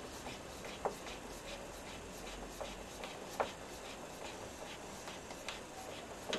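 Wood screw being driven by hand with a screwdriver through a plywood sled base: a few faint, irregularly spaced clicks and creaks as the screw is turned.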